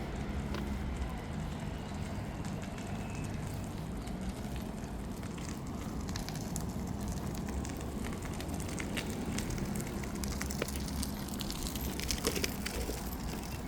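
Street ambience: a steady low hum of traffic under many irregular crackling clicks, which come thickest in the last few seconds.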